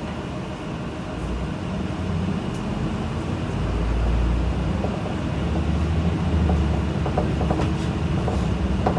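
Diesel engine of a Mitsubishi Fuso Aero Star (QKG-MP37FM) city bus running with a low drone that grows louder from about two seconds in. A few light clicks and rattles come near the end.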